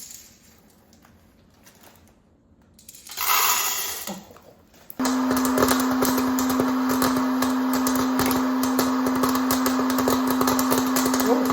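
A small electric motor tool switches on about five seconds in and runs steadily, a constant hum with scratchy clicking over it, consistent with a power polisher working on brass. A short hiss comes just before it.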